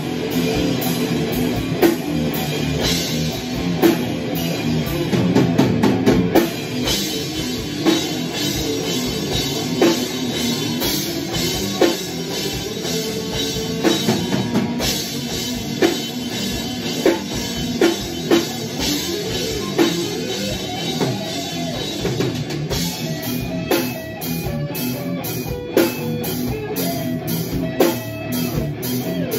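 Instrumental metal band playing live: two electric guitars, bass guitar and a drum kit, with steady drum and cymbal hits driving the riff.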